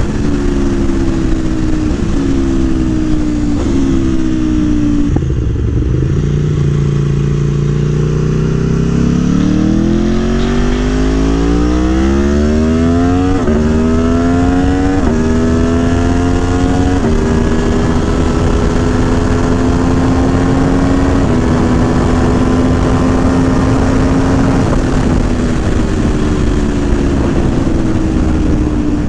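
Aprilia Tuono V4 1100 Factory's V4 engine, running a Gabro Stage 3 airbox and ECU flash, falling in pitch as the bike slows. Then it revs up hard through three quick upshifts, each a sudden drop in pitch, and settles to a steady cruise, easing off near the end.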